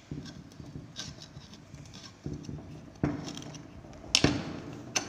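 Steel T-bar socket tool clicking and knocking against the bolts of a Hero Honda Splendor engine's right crankcase cover as the bolts are tightened. Short metal clicks run throughout, with sharper knocks about three seconds in and the loudest about four seconds in.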